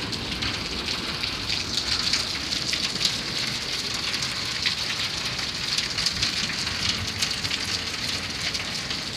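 Steady rain falling, with many small sharp taps of drops striking nearby surfaces.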